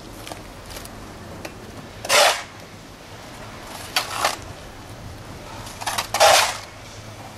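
Shovels scraping and scooping into liquefaction silt: three short scrapes about two seconds apart, with a few light knocks in between.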